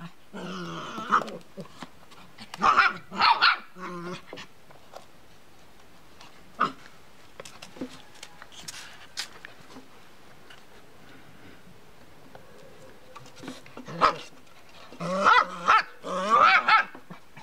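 Small fluffy dog growling and giving short barks in play at a cat, in brief bursts at the start and a busier flurry near the end, with a quieter stretch in between.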